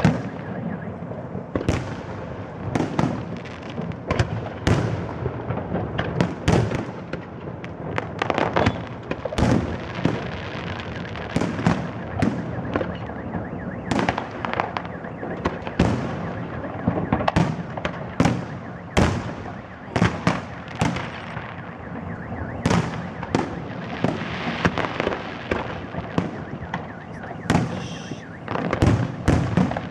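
Fireworks display: a rapid, irregular run of shell bursts and bangs, several a second at times, over continuous crackling.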